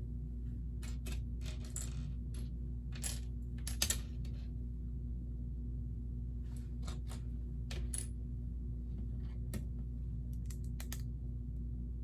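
LEGO plastic pieces clicking and clinking as they are handled and snapped together, irregular sharp clicks with a quick cluster about three to four seconds in, over a steady low hum.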